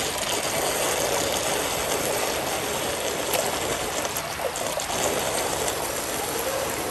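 Water pouring steadily from a pool's curved cascade spout and splashing into the pool, a constant rushing sound.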